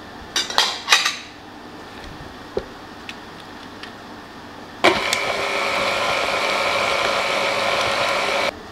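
KitchenAid tilt-head stand mixer: a few clunks near the start as the head is lowered, then from about five seconds in the motor runs with a steady whine, the flat beater folding walnuts into thick carrot cake batter, and it cuts off suddenly just before the end.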